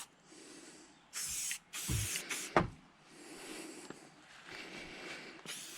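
Short hissing bursts from an aerosol can of SC1 spray-on protectant, three quick sprays, with a couple of light knocks from handling around the second one.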